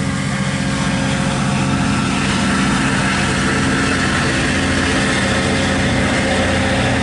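MARC MP36PH-3C diesel-electric locomotive running with a steady engine drone over broad train noise, growing a little louder about two seconds in.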